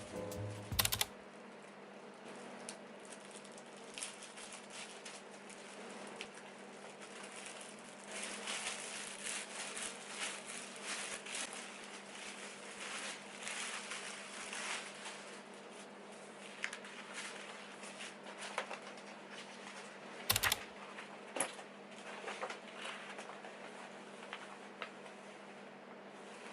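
Small objects being handled: scattered light taps, clicks and rustles over a steady low hum, with one heavier knock about 20 seconds in.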